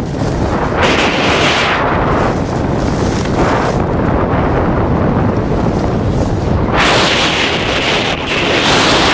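Wind buffeting the microphone of a camera carried downhill on a ski run: a loud, steady low rumble, with two longer swells of hiss about a second in and near the end.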